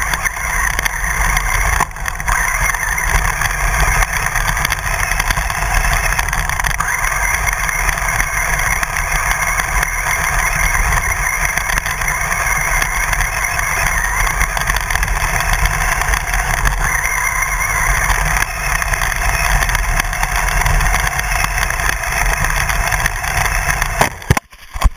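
Onboard sound of an RC car driving over rough grass: steady, loud motor and drivetrain noise mixed with rumble from the ground. It cuts off suddenly just before the end.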